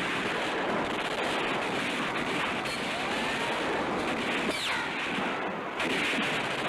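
Dense, continuous battle noise of machine-gun and rifle fire mixed with explosions, with a falling whine about four and a half seconds in.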